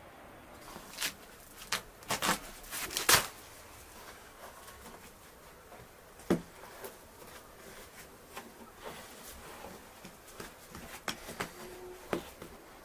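Bread dough being slapped and patted on a flour-dusted wooden board: a cluster of sharp thuds about one to three seconds in, then scattered softer pats.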